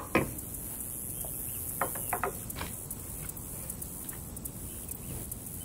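A glass salt jar handled on a wooden cutting board: a sharp knock right at the start, then three light clicks close together about two seconds in and one more shortly after, over a low steady background.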